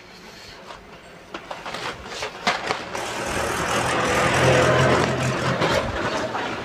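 Small electronic components and a plastic parts box clicking and rattling as they are gathered up after spilling. A louder rumble with a steady low hum swells and fades, loudest about halfway through.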